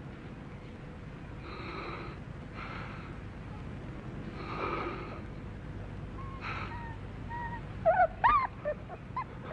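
Several soft, breathy, wordless vocal sounds in a row. Near the end comes a quick run of short, squeaky cries that rise and fall in pitch, the loudest part.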